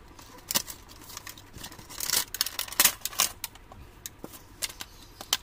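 Cardboard box and clear plastic blister packaging being handled and pulled open, with crinkling and scattered clicks, busiest about two to three seconds in.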